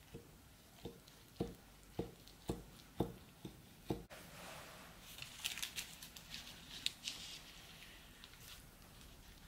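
A knife cutting through a baked savoury pie, knocking on the wooden board beneath about twice a second for the first four seconds. Then a spatula is pushed under a piece, scraping and crinkling the baking paper for a few seconds.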